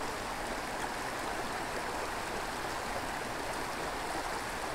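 Small creek running steadily over shallow rocky riffles: a continuous babble of water.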